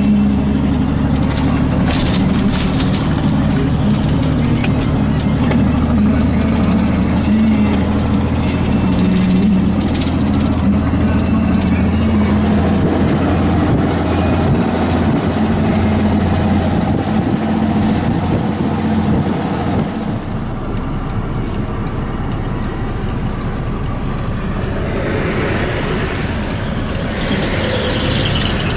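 Truck engine running with road noise, heard inside the cab of a moving truck. The sound drops a little about two-thirds of the way through, and a rising whine comes near the end.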